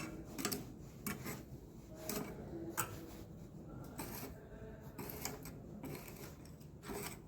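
Irregular scraping and small clicks of dirt and stones being picked out of an elevator door sill groove, the debris that is jamming the door as it closes.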